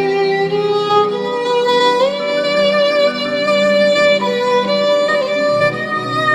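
Background music: a violin playing a slow melody of long held notes, sliding up into a higher note about two seconds in.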